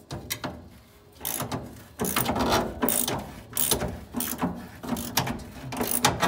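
Hand socket ratchet clicking in repeated back strokes as it loosens a pivot bolt under the dash; the clicking starts about a second in.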